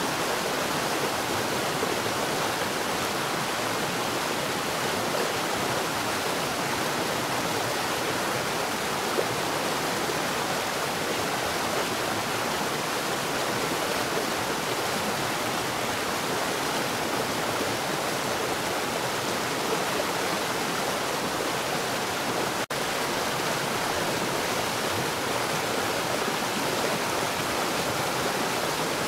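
Water falling underground at a rapid rate, a steady unbroken rushing. It cuts out for an instant about three-quarters of the way through.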